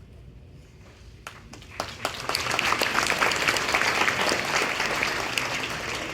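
Audience applauding: a few scattered claps, then full applause that builds quickly and slowly dies away.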